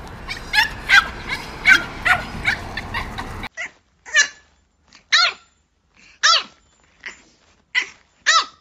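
Small dogs yipping rapidly over steady street noise. About three and a half seconds in, this gives way to a French bulldog puppy's high-pitched barks, about five, each rising and falling in pitch.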